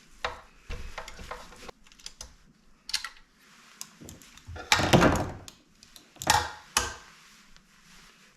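Clicks and clatter of a hand tool and metal parts being handled while the screws that hold down the motor of a KitchenAid stand mixer are taken out. The loudest clatter comes about five seconds in, with another shortly after.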